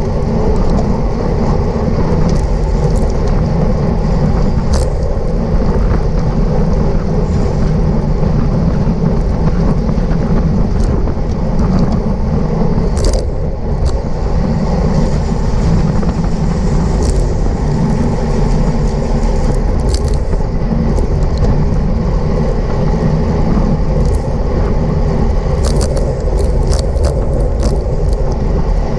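Steady low rumble of wind and road noise from a bicycle ridden at race speed, with scattered short clicks that come thicker near the end.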